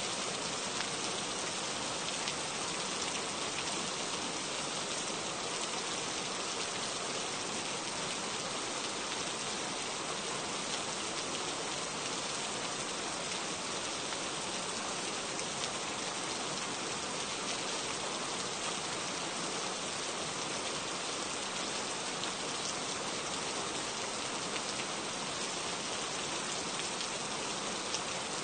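Steady rain falling, a dense, even patter of drops that keeps up without a break.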